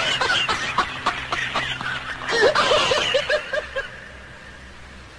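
Laughter in short, rapid ha-ha bursts, in two bouts, the second starting a little after two seconds in; it dies away about four seconds in.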